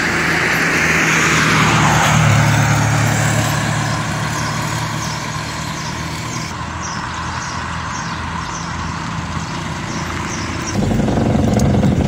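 A motor vehicle passing close by, its rush of noise swelling and then falling away over the first two seconds, over a steady engine hum that grows louder near the end.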